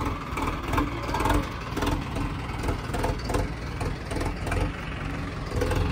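A vehicle engine running steadily, a low rumble with uneven pulses.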